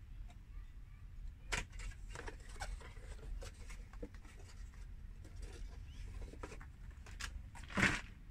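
Scattered light rustles, scrapes and taps of small things being handled, over a low steady hum; the loudest is a short rustle near the end.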